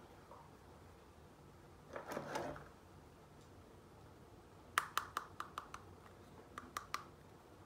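Small plastic toy hair dryer being handled: a brief scraping rustle about two seconds in, then a quick run of about six sharp plastic clicks, and after a short pause three or four more.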